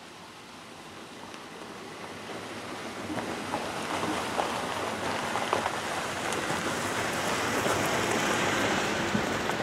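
Jeep Wrangler driving down a dirt and stone trail toward and past, its tyres crunching over dirt and loose stones with scattered small clicks, growing steadily louder as it nears and loudest near the end.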